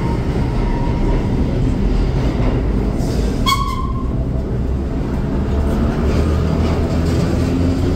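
Vintage IRT Lo-V subway train pulling out of the station and rolling past the platform: a steady, loud low rumble of wheels and motors, with a brief high squeal about three and a half seconds in.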